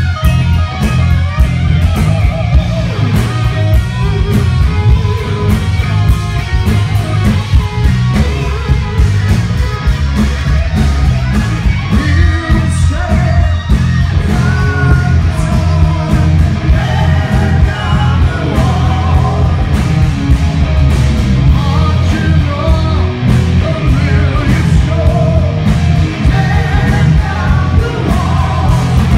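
Live hard rock band playing loud through a PA: distorted electric guitars, bass and drums, with a male singer singing over them. The bass end is heavy and booming.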